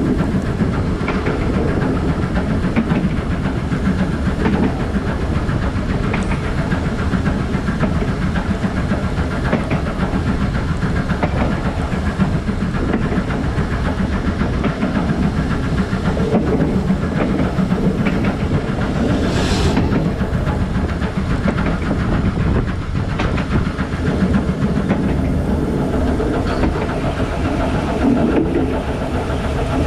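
BR Standard Class 5 4-6-0 steam locomotive No. 73156 working, heard from its cab: a steady rumble with steam hissing, and a short, sharper hiss of steam about two-thirds through.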